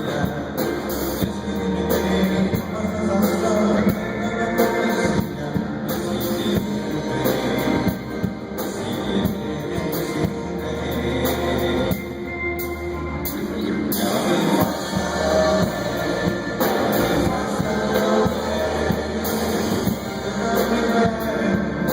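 Band playing a pop-rock song with guitar and drums, at a steady beat.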